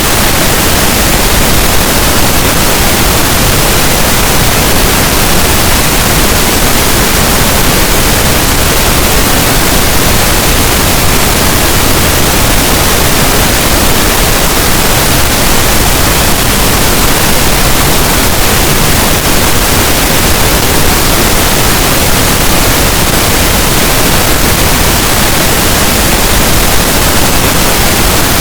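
Continuous pink noise: a steady, even hiss spread across all pitches, with no change in level, played as a sleep aid to mask sudden noises.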